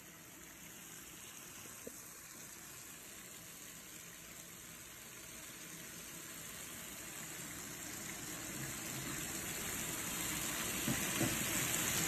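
Meat sizzling on an electric grill plate, a steady hiss that grows gradually louder, with a few faint pops near the end.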